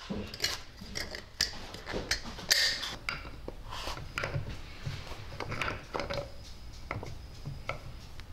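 John Deere B engine pistons and connecting rods handled and fitted together on a workbench: irregular metal clicks and clinks, with a louder clank about two and a half seconds in.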